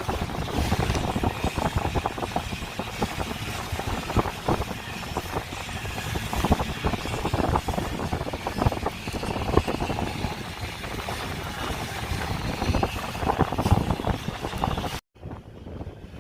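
A motorboat under way: its engine and the rush of water mixed with heavy wind buffeting the phone's microphone, with frequent knocks and rattles. It cuts off abruptly near the end.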